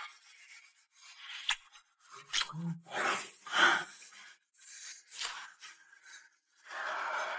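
A couple kissing, with breathy gasps, lip smacks and clothes rubbing in irregular bursts, and a brief low moan about a third of the way in.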